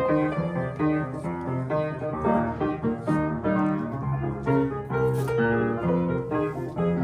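Solo piano playing, a continuous flow of single notes and chords.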